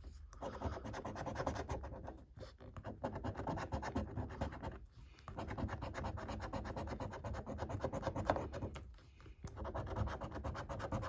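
Coin scratching the latex coating off a paper lottery scratchcard: quick rasping strokes in four runs, broken by short pauses.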